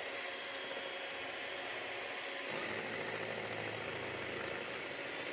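Electric mixer running steadily, beating eggs with a pinch of salt in a bowl.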